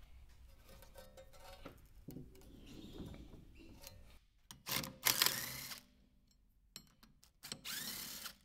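Tools and metal brake parts being handled during a brake job: light knocks and clatter, then two loud hissing, scraping bursts, one about five seconds in lasting about a second and a shorter one near the end.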